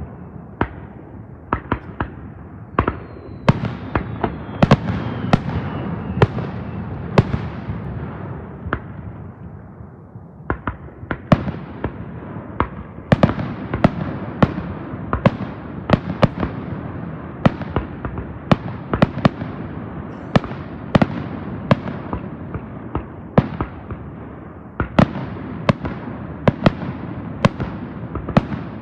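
Aerial fireworks shells bursting in rapid, irregular succession, often several bangs a second, each sharp bang trailing off in a rolling echo. A faint falling whistle sounds a few seconds in.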